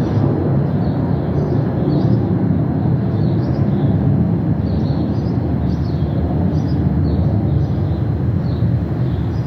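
Metro-North diesel-hauled Shoreliner train passing through the station, a steady low rumble. A bird chirps over and over above it.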